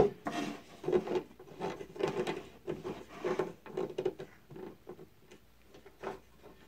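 Irregular rubbing, scraping and light knocks as a piece of particle board is handled and slid across a band saw's metal table, with an arm and sleeve brushing close to the microphone. The saw itself is not running. The noises thin out after about four and a half seconds.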